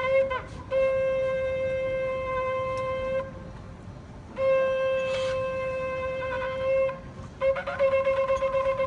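Shofar (ram's-horn trumpet) being blown on one note: two long steady blasts of about two and a half seconds each, separated by a short pause. About seven and a half seconds in, it breaks into rapid pulsing notes, several a second.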